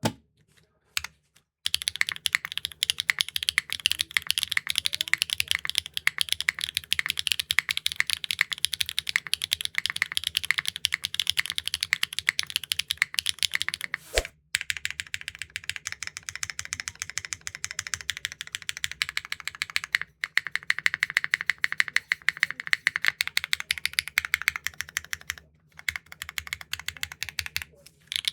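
Mechanical keyboard with HMX linear switches, an aluminum plate, no foam and GMK keycaps, typed on fast and without a break in two long runs: a clacky, raw typing sound test. The typing stops briefly about halfway through, then carries on.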